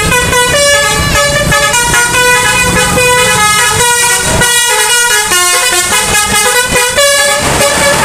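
Multi-tone telolet (basuri) bus horn on a Dheemobillindo coach playing a tune. Several horn tones sound together and step up and down in pitch, with a new note every few tenths of a second.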